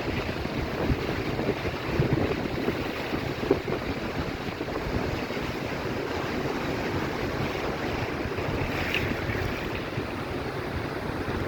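Steady rush of a waterfall dropping about 100 feet into a pool, with wind buffeting the microphone.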